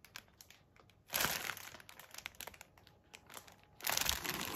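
Plastic packaging crinkling and rustling as it is handled, in two bursts: one about a second in and another near the end, with scattered small clicks and rustles between.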